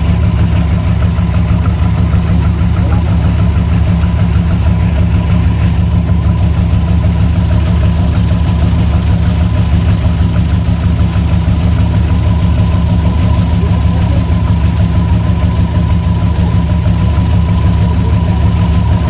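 Rice combine harvester's diesel engine running steadily and loudly at a constant speed, with a steady high whine over its low rumble.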